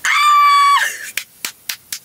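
A woman's high-pitched squeal, held on one pitch for under a second, then about four quick hand claps.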